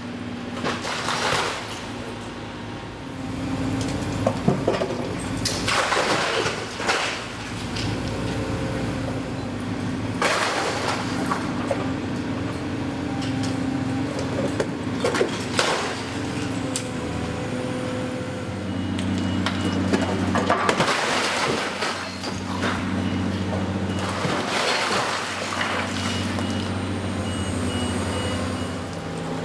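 Demolition excavator's diesel engine running steadily while its hydraulic sorting grapple tears into a brick wall, with bricks and debris crashing down about six times.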